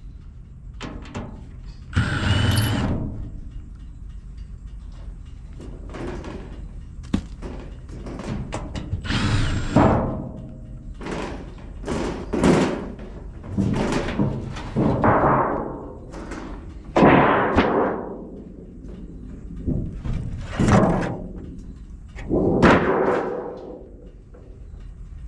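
A series of heavy thuds and clanks from building work, about a dozen spaced irregularly, each ringing briefly.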